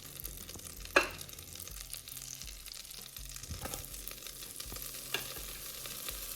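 Onions frying in melted butter in a pan: a steady sizzle, with a sharp knock of a utensil against the pan about a second in and a few lighter knocks as they are stirred.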